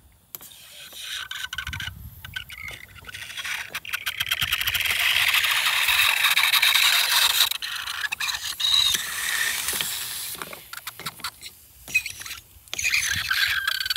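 Ice rattling and scraping in a container, with clattering knocks, and a steady hiss for about three seconds in the middle.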